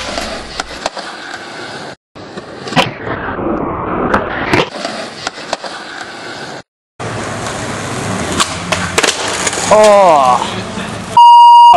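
Skateboard wheels rolling on concrete with sharp clacks of the board landing and popping, over several short clips. Near the end a voice calls out, followed by a loud, steady beep.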